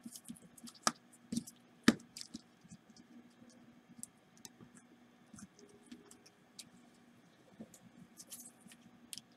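Scattered small clicks and taps from gloved hands working on an opened iPhone 5 while fitting a replacement battery, the sharpest click about two seconds in. A faint steady hum runs underneath.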